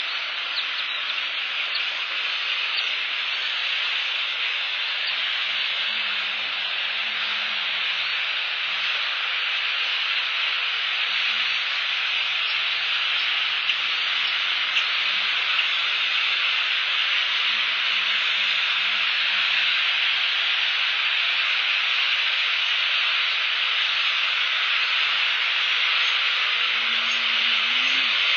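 Steady rain falling, a dense, even hiss without a break.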